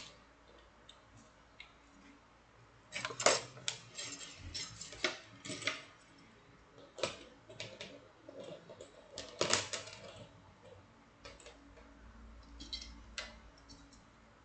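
Metal wire puzzles clinking and clattering as they are handled, in irregular bunches of sharp clicks with a short metallic ring.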